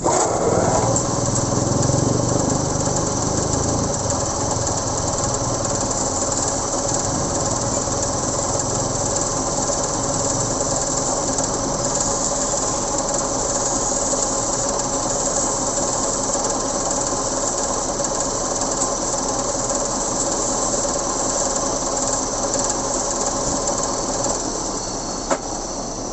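Metal lathe starting up and running steadily with a gear whine, spinning a spoked motorcycle wheel clamped in its chuck. About two seconds before the end the whine drops out and the sound fades as it winds down, followed by a single sharp click.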